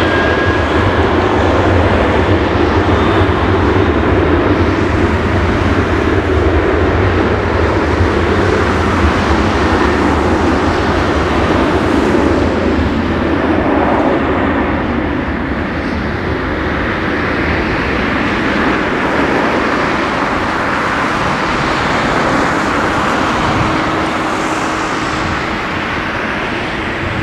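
Airbus A310-300 jetliner's two General Electric CF6-80C2 turbofans at takeoff thrust through the takeoff roll and lift-off: loud, steady jet noise with a deep rumble underneath. It eases slightly in the second half as the aircraft moves away.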